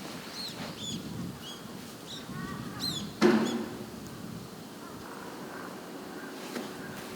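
An African elephant flinging sand over itself: a sudden loud rush of sand about three seconds in that fades within half a second, over a low rustle. Small birds chirp repeatedly beforehand.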